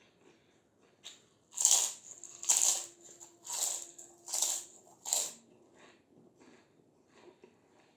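Close-up crunching of crispy fried papad and fryums being bitten and chewed: five loud crunches about a second apart, then quieter chewing.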